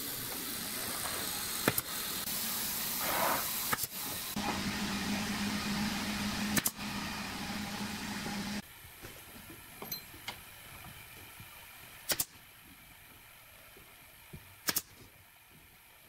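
Workshop sounds as wooden panels are fitted into a box: a steady machine hum for a few seconds, then a quieter stretch broken by a handful of sharp knocks and clicks.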